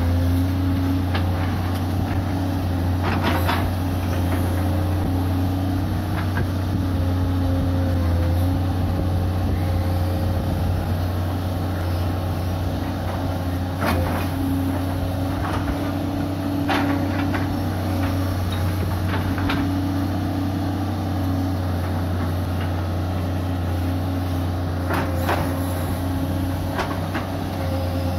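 Hitachi UH045-5 hydraulic excavator running steadily as it digs. Its engine hum holds a constant tone whose pitch shifts slightly as the arm works. A few sharp knocks stand out, about 3, 14, 17 and 25 seconds in.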